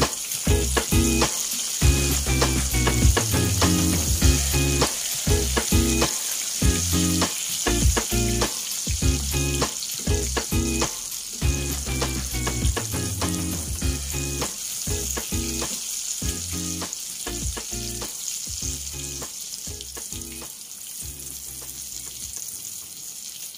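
Breaded fish fillets frying in a pan of hot oil over low heat: a steady sizzle with dense crackling pops as the pieces are turned. The sizzle gradually eases off over the last few seconds.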